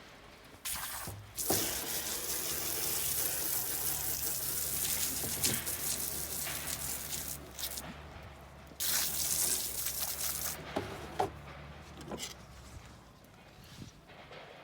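Water running while salmon fillets are rinsed clean: two spells of steady flow, the first several seconds long and a shorter one a little after halfway, with small knocks of handling in between.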